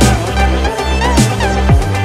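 Background electronic music with a steady beat and deep bass notes that slide downward.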